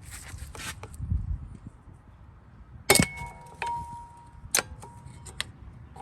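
Metal-on-metal scraping, then several sharp ringing clinks, as a tool is levered between the brake caliper and rotor to push the caliper piston back.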